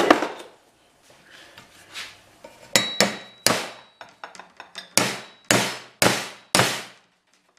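Hammer striking the free end of a length of aluminum square tubing clamped in a vise, in a series of sharp metallic blows about half a second apart in two runs, one with a brief ring. It is a strength test to break the tube's butt joint, which is brazed with aluminum brazing rod.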